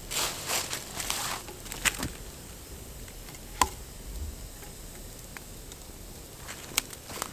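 Footsteps crunching through dry fallen leaves, then one sharp wooden knock about three and a half seconds in as a long log is set down across stakes over the fire. A few sharp clicks follow near the end.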